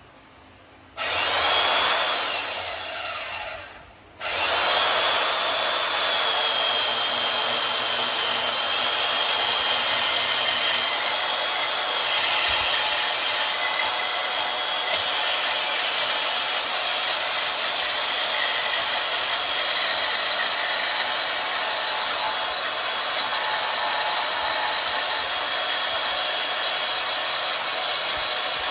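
Portable bandsaw cutting square steel tubing. The motor starts about a second in, runs briefly and winds down with a falling whine near four seconds, then starts again and runs steadily with a high whine as the blade cuts through the tube.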